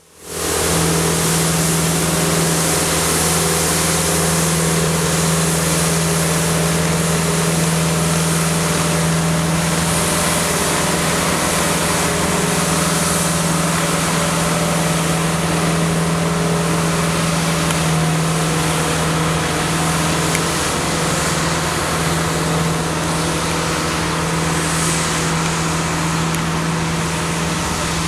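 Elgin Pelican mechanical broom street sweeper working a wet street: a steady engine drone with a strong low hum, over a constant hiss.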